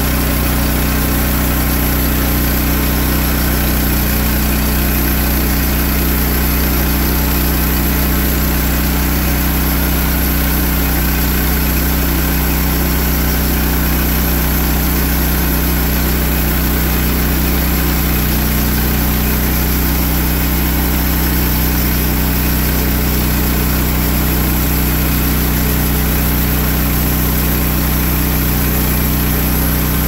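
Portable band sawmill running steadily, its engine held at speed as the band blade cuts lengthwise through a log.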